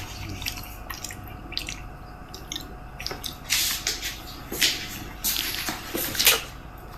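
Eating noises: wet mouth clicks and smacks from someone chewing food, with several brief louder noisy bursts in the second half.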